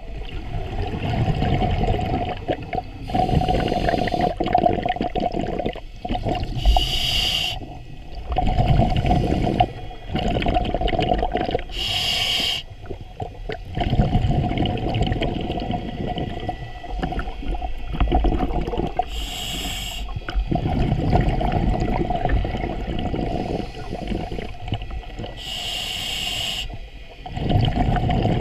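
Scuba diver breathing through a regulator underwater: five short hisses of inhalation, one every five to seven seconds, each followed by a long bubbling exhalation.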